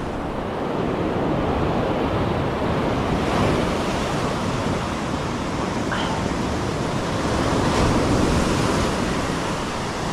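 Surf breaking and washing on a steep ocean beach: a steady rush of water that swells twice, with wind buffeting the microphone.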